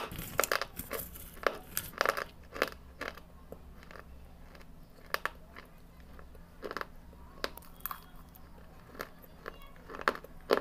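Hard red clay pieces being bitten and chewed close up: a string of short, sharp crunches, close together in the first few seconds and more spaced out after.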